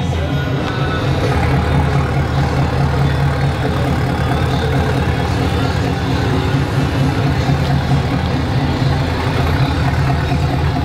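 Chevrolet Silverado pickup idling steadily through its newly fitted Carven exhaust and long-tube headers.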